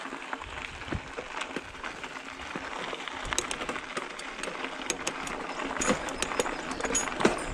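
Mountain bike tyres rolling over a gravel road: a steady crunch with many small, irregular clicks of stones under the tyres.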